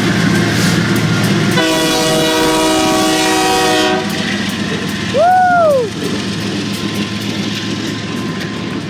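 Passing train rumbling with wheel clicks. About one and a half seconds in, its multi-tone air horn sounds a steady chord for about two and a half seconds. About five seconds in comes a short, loud cry that rises and falls in pitch.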